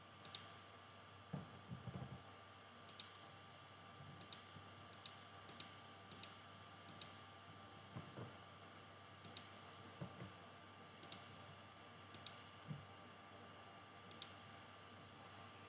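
Computer mouse clicking faintly: about a dozen single clicks at irregular intervals, with a few soft low thuds among them over a faint steady hum.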